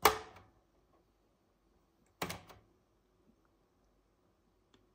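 Meratronik V543 multimeter's mechanical push-button range switches being pressed. There are two sharp clunks: the first is loud and rings briefly, and the second comes about two seconds later, quieter, as a short run of clicks.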